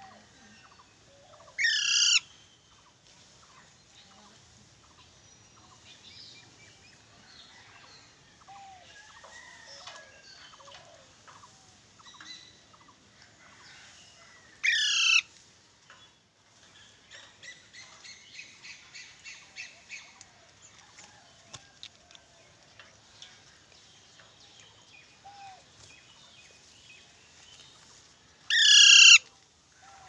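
Green parakeet giving three loud, harsh screeches, each about half a second long and roughly 13 seconds apart. Softer chirps and a quick run of ticking calls come in between.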